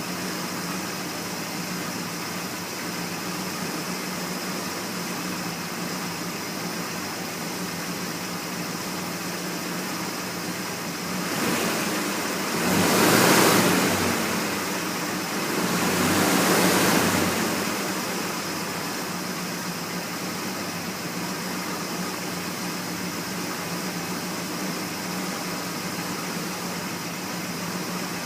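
1979 Ford F-150's 400 big-block V8 idling steadily on fresh oil, with two brief swells in loudness about halfway through.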